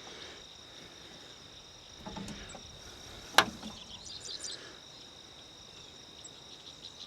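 Steady, high-pitched chorus of insects, with one sharp click about three and a half seconds in and a few softer clicks around it.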